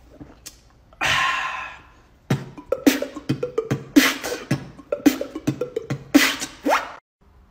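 Human beatboxing: a loud breathy hiss about a second in, then kick and snare sounds in a steady rhythm over a hummed bass tone, stopping just before the end.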